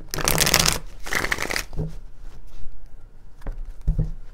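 A tarot deck being shuffled by hand, cards slapping and sliding together. There are two bursts of shuffling in the first second and a half, then a few soft taps of cards.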